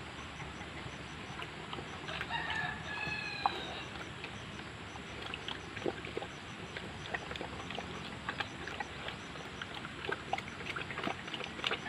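A rooster crows once about two seconds in, over a pig's wet clicking and slurping as it eats from a steel feed bowl.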